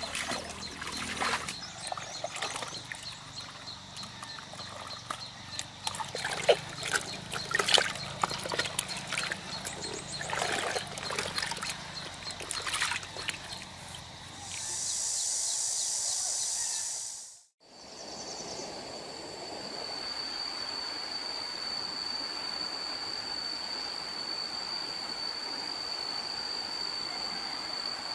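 Splashing and trickling water with scattered sharp clicks, then a short burst of hiss. After an abrupt cut, a steady mechanical noise with a thin high whine runs on.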